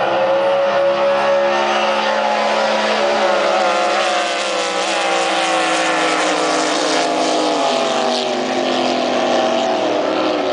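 Racing drag boats' engines running at full throttle down the course, a loud, steady engine sound whose pitch slowly falls as the boats pull away.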